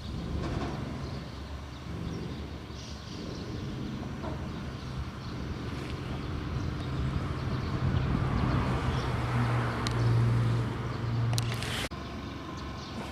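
Outdoor ambience with a vehicle passing: a low engine hum and road noise swell over several seconds, then cut off abruptly near the end.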